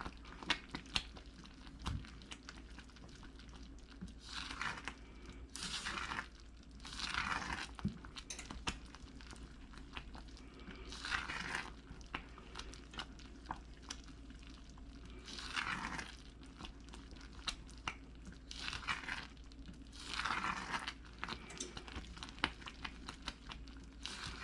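A spoon stirring boiling fudge mixture (sugar, butter and evaporated milk) in a heavy saucepan: a scraping swish every few seconds, with many small clicks and pops in between.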